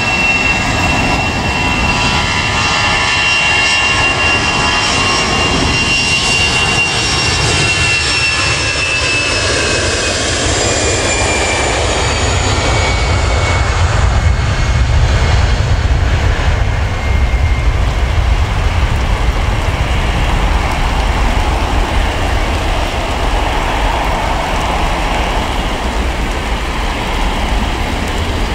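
Jet engines of an Airbus A320-family airliner on a wet runway: a high turbine whine that slowly falls in pitch over the first ten seconds, giving way to a deep rumbling takeoff roar that gets louder about halfway through.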